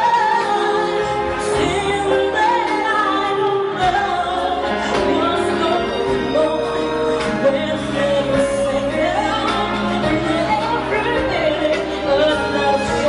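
A woman singing a pop ballad live into a handheld microphone over instrumental backing, with long held notes and sliding melodic runs.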